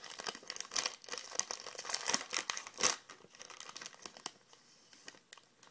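Trading-card packaging being torn open and crinkled by hand: dense rustling and crackling with sharp snaps, loudest about three seconds in, then dying down to small rustles.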